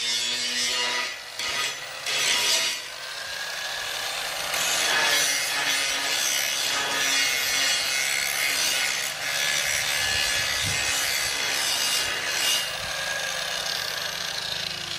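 Handheld angle grinder grinding a steel square-tube column, a steady high-pitched grinding noise with a short break about a second and a half in as the disc comes off the metal.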